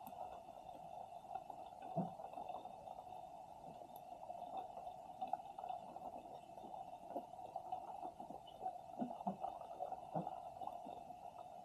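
Muffled underwater ambience picked up by an action camera resting on the sea floor: a steady hum with soft, irregular thumps and rumbles every second or so.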